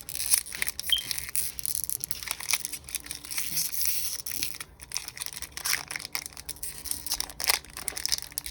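Foil wrapper of a Pokémon card booster pack crinkling and tearing in irregular crackles as hands struggle to rip it open; the pack is hard to open.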